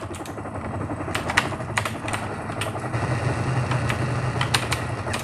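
Computer keyboard keys and mouse clicking irregularly during gameplay, over a steady low hum.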